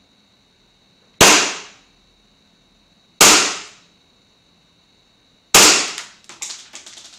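Three shots from a WE XDM 4.5 green-gas blowback airsoft pistol, each a sharp crack that fades quickly, about two seconds apart. The last shot is followed by a quick run of lighter clicks.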